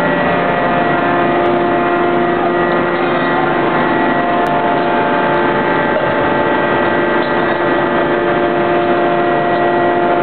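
Hydraulic system of a C92K-200KJ CNC fully hydraulic die forging hammer running: a steady loud hum with several held whining tones, and no hammer blows.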